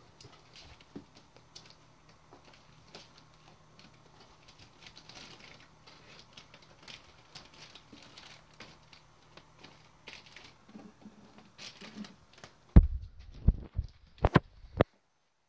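Young kittens' paws and claws pattering and scratching among cables on a wooden floor: faint, scattered small clicks and rustles. Near the end come a few loud, sharp bumps, and then the sound cuts out abruptly.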